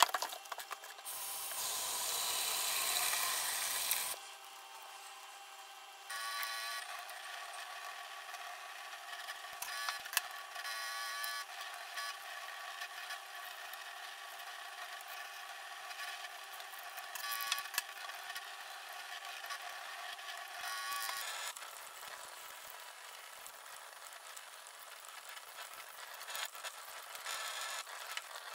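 Wild mushrooms handled in a plastic colander in a stainless-steel sink: a few clacks as a bamboo basket is emptied into it, then tap water running for about three seconds and shutting off suddenly. Soft handling sounds of wet mushrooms and sink debris follow over a faint steady hum.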